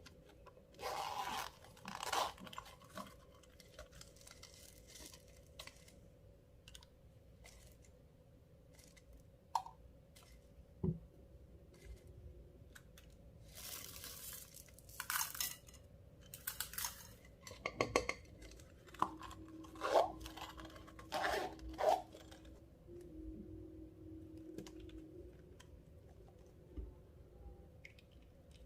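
Clear slime being worked by hand: irregular sticky crackles and tearing sounds as it is stretched and pressed, with a few sharp clicks.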